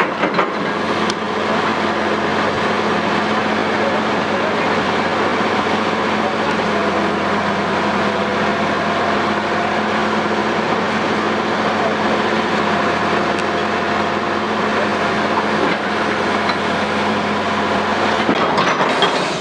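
Diesel engine of heavy quarry machinery running steadily under load, with a steady hum.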